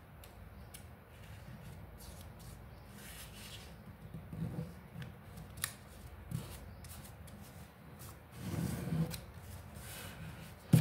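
Faint rustling and creasing of a sheet of coloured paper being folded by hand, with scattered light clicks as the folds are pressed flat.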